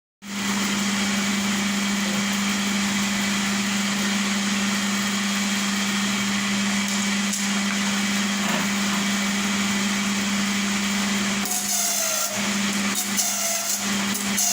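Satay-skewering machine running: its electric motor gives a steady hum. About three-quarters of the way in, irregular clicks and rattles join the hum.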